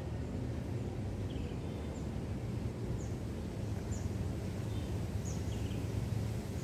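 A small bird chirping in short, high, falling notes about once a second, over a steady low outdoor rumble.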